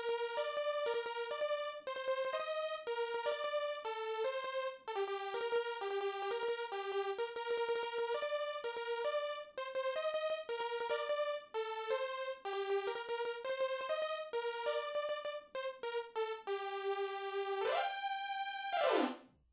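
Korg M1 synthesizer lead patch, a bright chorused synth tone, playing a fast single-note melody. Near the end a long note slides up an octave, holds, then dives down in pitch and cuts off.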